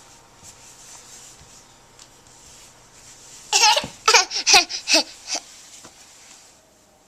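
A young child's voice making a quick run of five or six short, high vocal noises lasting about two seconds, starting about halfway through.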